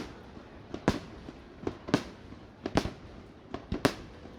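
Aerial fireworks bursting: a string of sharp bangs, about one loud one a second with smaller pops between, each trailing off in a short rumble.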